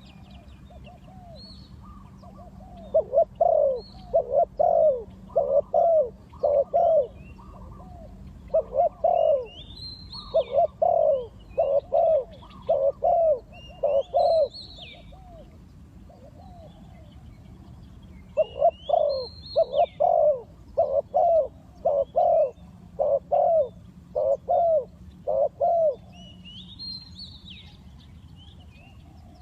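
Spotted dove cooing in long runs of low, evenly spaced coos, three series with short pauses between them. Fainter, higher chirps of small birds come through in the gaps.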